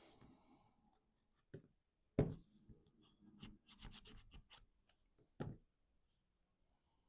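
Cardstock being folded and handled on a work surface: a brief paper rustle, then a sharp tap and a run of light clicks and taps as the piece is creased and set down.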